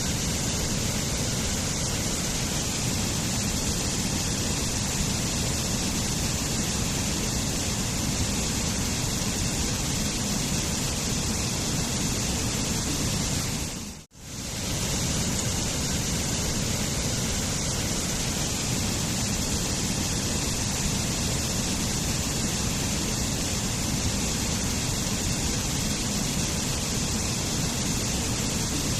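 Waterfall pouring steadily, an even, dense rush of water. It dips out for a moment about fourteen seconds in and comes straight back.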